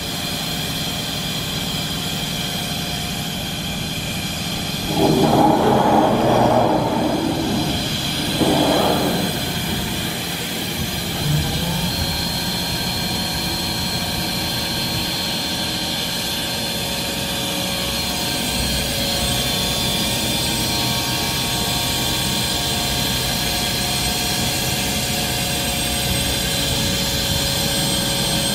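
Industrial machinery running with a steady hum, with two louder noisy bursts about five and eight seconds in. About twelve seconds in, a motor spins up, rising in pitch, then holds a steady whine.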